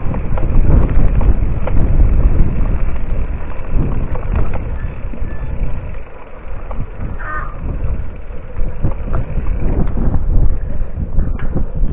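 Wind rumbling on the microphone of a camera carried on a mountain bike riding a dry dirt singletrack, with irregular knocks and rattles from the bumps. A brief squeak comes past the middle as the bikes slow.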